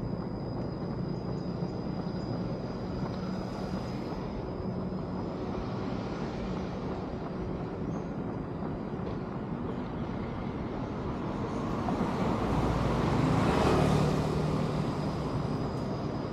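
Steady city traffic noise with a thin high steady tone over it. Near the end one vehicle passes close, swelling louder and then fading.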